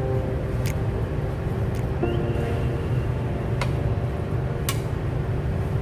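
A metal spoon stirring food in an aluminium pan, clinking against the pan's side three times, over a steady low hum.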